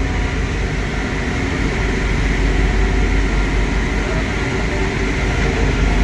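Double-drum road roller running as it rolls over a dirt road bed: a loud, steady engine sound, heavy in the low end.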